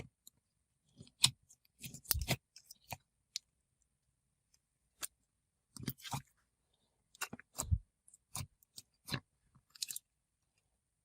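A jelly slime with foam discs being squished and poked by hand: scattered wet clicks and crackling pops, some in quick little clusters, stopping about ten seconds in.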